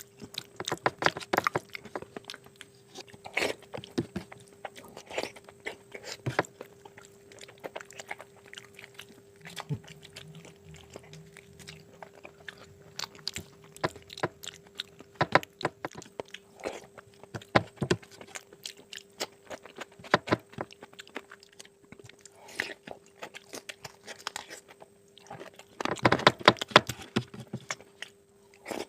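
A person chewing and biting mutton curry close to the microphone: irregular crunches and mouth noises, busiest about 26 seconds in, over a faint steady hum.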